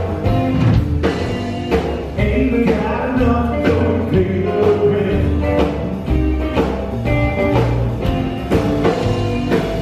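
Live rockabilly band playing, with an upright double bass walking a low bass line, a drum kit keeping a steady beat, and electric guitar.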